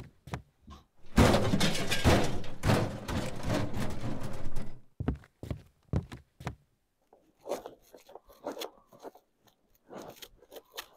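Off-screen thuds, knocks and rustling of someone fetching and carrying cardboard parcels. A dense stretch of clatter starts about a second in and lasts three to four seconds, followed by scattered separate knocks and bumps.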